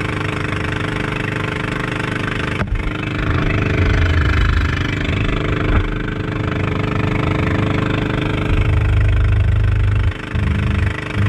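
Engine of a motorized outrigger boat running steadily at speed, with the rush of water and wind over it. The sound drops briefly twice near the end.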